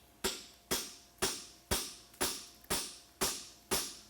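Farrier's hammer striking a hand tool, a fuller or nail-hole stamp, into a steel horseshoe on the anvil: eight even blows about two a second, each ringing briefly. This is the final touch-up of the shoe's fullered crease and nail holes.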